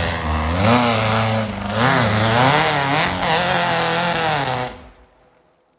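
Off-road buggy engine revving hard under load on a steep hill climb, its pitch surging up and falling back several times as the throttle is worked; the sound drops away about five seconds in.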